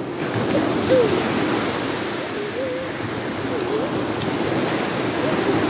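Small sea waves breaking and washing up on the shore, a steady rush of surf.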